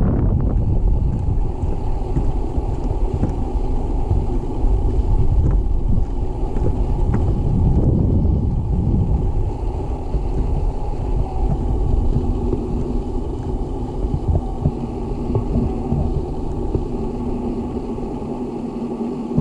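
Wind buffeting an action camera's microphone: a steady low rumble, with a faint low hum joining about two-thirds of the way through.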